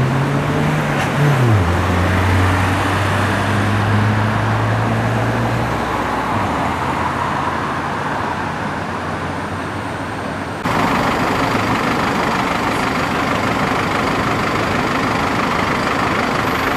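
Road traffic passing at night. In the first few seconds a vehicle's engine hum drops in pitch and then holds before fading. About eleven seconds in the sound changes abruptly to a louder, brighter traffic noise.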